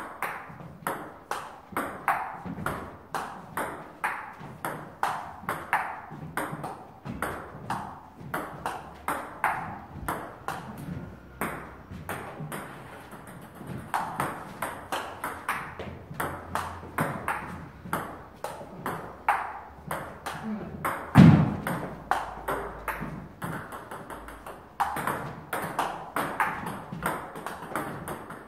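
Table tennis rally: the celluloid/plastic ball clicks steadily back and forth off the bats and the table, about two to three sharp ticks a second, with one bat faced with Butterfly Ilius S long-pimple rubber for chopping. A single heavy thump about three-quarters of the way through is the loudest sound.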